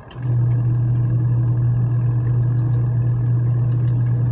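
Costway 26 lb twin-tub washing machine's electric motor running with a steady, loud low hum that switches on abruptly just after the start.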